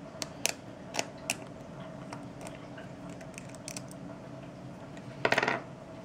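Light clicks and taps of small tools on the phone's plastic and metal parts while a tiny screw is taken out, then a short rasping scrape about five seconds in. A faint steady low hum runs underneath.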